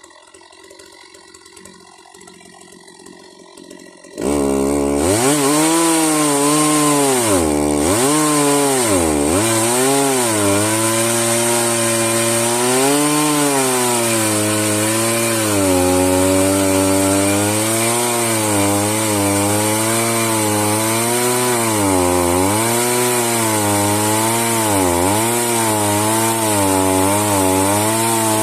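Chainsaw on a home-made Alaska-style sawmill ripping lengthwise through a log. It comes in abruptly about four seconds in after a low-level lull, its engine pitch dips sharply twice soon after, then it runs on under load with a wavering pitch.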